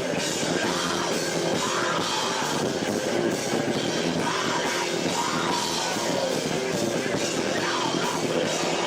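Live band playing loud rock music, a dense unbroken wall of sound. It is heard through a camcorder microphone that is overloaded and muddied by the room's echo.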